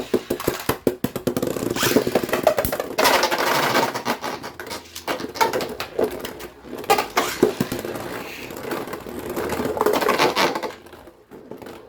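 Two plastic-and-metal Beyblade X spinning tops whirring and scraping around a plastic stadium, clashing with many rapid sharp clacks. The noise fades out shortly before the end as the battle finishes.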